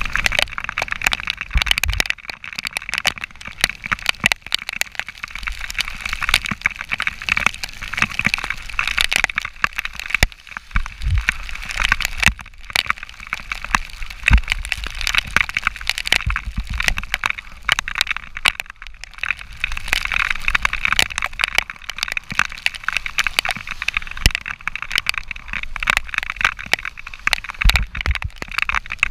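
Continuous crackling and rattling noise with irregular low wind rumble, as picked up by a camera riding along on a moving bicycle.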